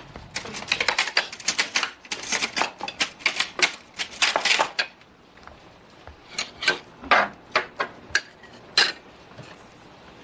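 Small metal side-dish bowls clinking and clattering as they are set down from a tray onto a table: a quick, busy run of clinks for about five seconds, then a few scattered clinks of dishes and utensils.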